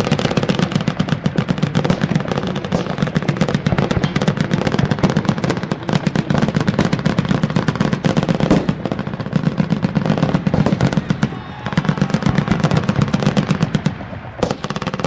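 Sustained heavy machine-gun fire from several weapons at once, a dense run of overlapping rapid shots with no break, thinning slightly near the end.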